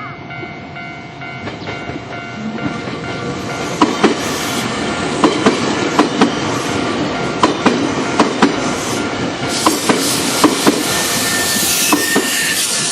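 Electric train passing through a Japanese level crossing, its wheels clacking in pairs over the rail joints and growing louder as it goes by. The crossing's warning bell rings steadily throughout.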